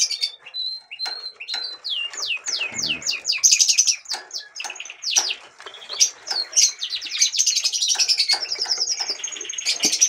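Budgerigars chirping and chattering: a dense run of quick falling chirps and warbled trills.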